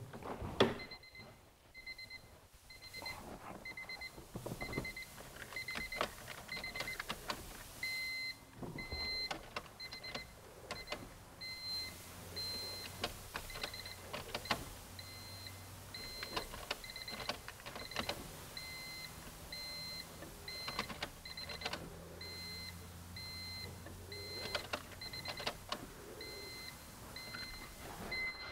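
A 2000 Honda Civic's warning chime beeping in a steady run of short, high, even beeps while the ignition key is cycled on and off to prime the fuel system, with scattered clicks. A low hum in the middle stretch fits the fuel pump priming.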